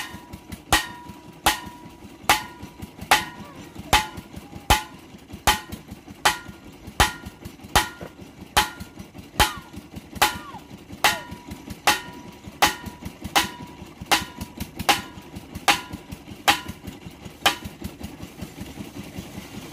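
Steel pipe of a hand-worked tube-well boring rig being jerked up and down by a lever, clanking with a ringing metallic strike about every 0.8 s, over an engine running steadily in the background. The strikes stop a couple of seconds before the end.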